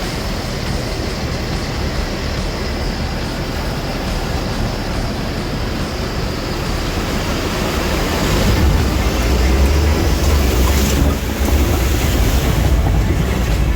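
A boat's engines running under power as the boat heads out through the surf, with rushing water and wind noise. The low engine rumble grows louder about eight seconds in.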